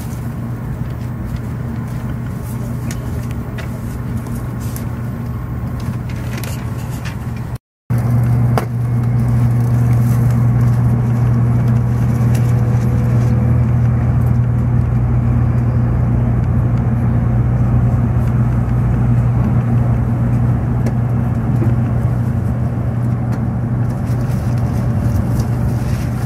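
Interior running noise of a Shinkansen Nozomi bullet train travelling at speed: a steady low rumble with a constant hum. The sound drops out for a moment about eight seconds in and returns louder.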